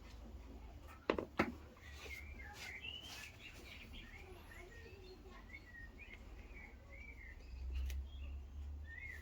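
Birds chirping faintly in the background, short wavering calls repeated through the whole stretch, over a low steady hum. Two sharp clicks come close together about a second in.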